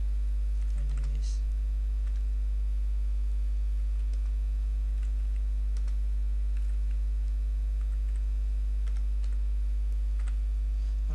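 Computer keyboard being typed on, with scattered irregular key clicks. Under them runs a loud, steady low electrical mains hum.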